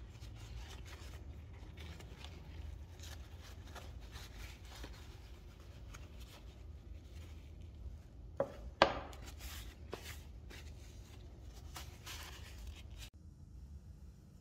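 Paper towel rubbing and crinkling as a bent metal wire part is wiped clean, with two sharp knocks close together about halfway through, the second the loudest.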